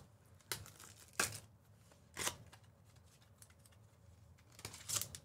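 Trading-card packaging being handled and torn open: a few short crinkles and tears with quiet gaps between, and a cluster of them near the end.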